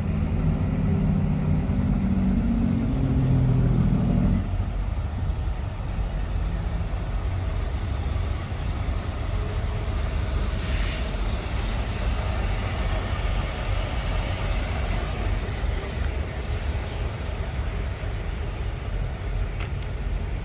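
Truck running with a steady low rumble, and a steady pitched engine drone over it for the first four seconds or so.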